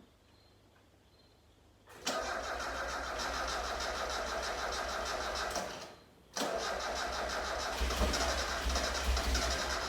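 Mazda Miata's four-cylinder engine cranking on the starter without catching, in two tries. The first starts about two seconds in and lasts about four seconds; the second follows a short pause and is still going at the end. The car won't start: the engine turns over but does not fire.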